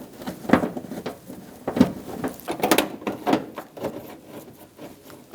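Scattered light knocks and clicks of a plastic inner fender liner being handled and its bolts started by hand, at irregular intervals, the loudest about half a second and almost two seconds in.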